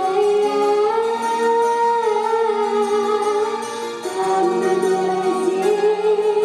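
A boy singing a song into a microphone over an instrumental backing track, amplified through stage speakers, holding two long, slowly bending notes, the second starting about two-thirds of the way through.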